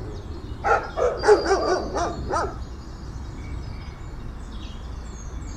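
A dog barking: a quick run of short barks over the first two and a half seconds, then only a faint background hiss.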